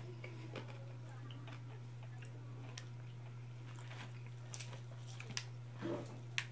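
Faint clicks and crackles of chewing and of crispy-coated fried chicken being torn apart by hand, with a few more of them in the second half, over a steady low hum.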